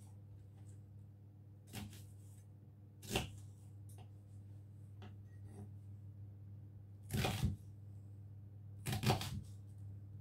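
Kitchen knife chopping an onion on a wooden chopping board: a few sharp knocks of the blade on the board at irregular intervals, the later ones in quick clusters of strokes.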